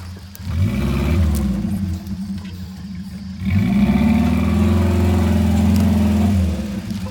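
Off-road 4x4's engine revving twice: the pitch climbs about half a second in and eases off, then climbs again and is held high for about three seconds before dropping near the end.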